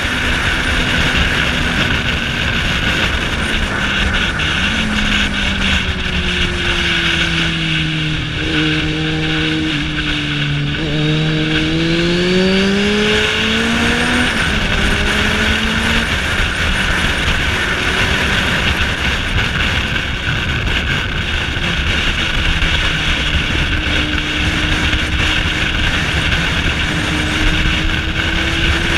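Motorcycle ridden at road speed, heard through heavy wind rush on a rider-mounted camera. Under the wind, the engine note drops over several seconds, climbs again about halfway through, then settles.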